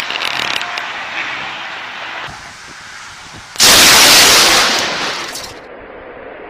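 Storm wind noise on the microphone. About three and a half seconds in, a sudden, very loud thunderclap from a close lightning strike overloads the recording and fades over about two seconds.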